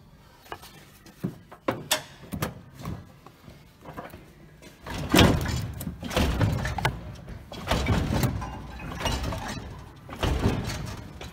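Sharp metal knocks and clanks from the small-block Chevy 350 being worked loose in the engine bay, then three loud, heavy, rough stretches of a second or two each as the engine is shifted forward on the hoist.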